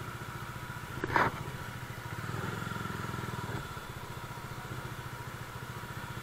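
Bajaj Dominar 400's single-cylinder engine running at low road speed with an even beat, the engine note rising a little between about two and three and a half seconds in. A short, sharp noise stands out about a second in.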